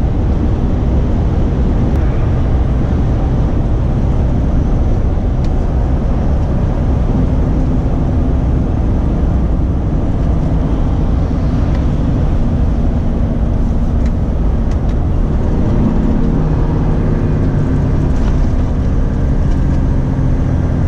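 Cab noise of a Renault Trucks T-range semi-truck cruising on a motorway: a steady low diesel engine drone mixed with tyre and road noise. The engine's note shifts in the second half.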